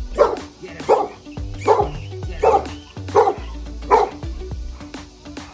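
Large dog barking in a steady run, about six sharp barks roughly three-quarters of a second apart, stopping about four seconds in. It is barking at a tennis ball held out just beyond its reach.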